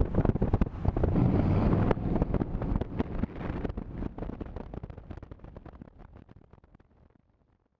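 Wind buffeting a camera mounted on the outside of a moving Jaguar XK8, with the car's road and engine noise underneath; the sound fades out steadily from about two seconds in.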